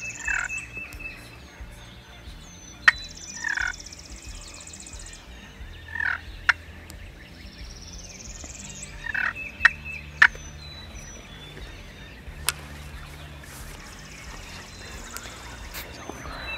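A wild turkey gobbler gobbling four times, about three seconds apart, each gobble a short falling rattle. Songbirds sing high and thin in the background, and there are a few sharp clicks.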